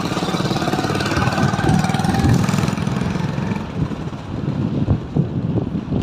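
A vehicle engine running with a rapid low pulse, louder in the first half and easing off about four seconds in, with a few sharp knocks near the end.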